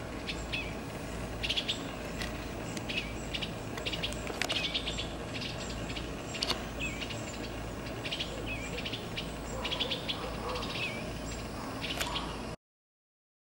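Eastern bluebird parents calling to their fledglings: short chirps and chattering notes repeating every second or so, over a steady low rumble. The sound cuts off abruptly near the end.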